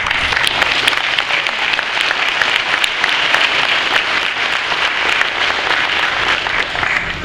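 A congregation applauding: dense, steady clapping that dies away near the end.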